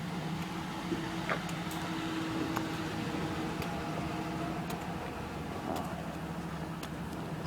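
A car engine idling with a steady hum, with a few light ticks over it.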